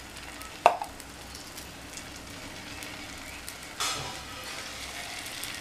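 Hot oil sizzling steadily in a nonstick paniyaram pan as batter is ladled into its wells. There is a sharp tap about half a second in, and a louder burst of sizzling about four seconds in as more batter goes in.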